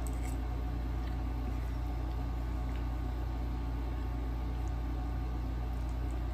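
A steady low hum throughout, with a faint click of a metal fork against teeth right at the start and a couple of faint ticks later.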